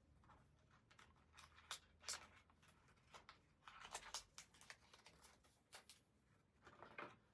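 Faint rustling and small scattered clicks of paper and cardboard being handled: the inserts and packaging from an iPhone box.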